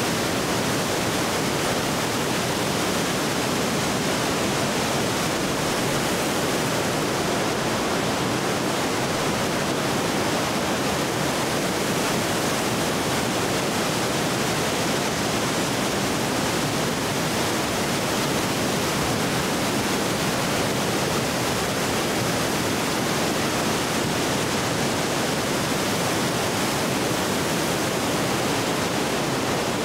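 Steady rushing of a flood-swollen river pouring over a falls and dam, an unbroken roar of water.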